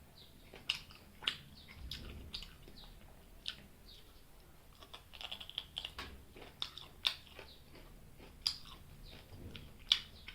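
Close-miked chewing of fried chicken gizzard: wet mouth smacks and sharp clicks at an irregular pace, a few of them louder.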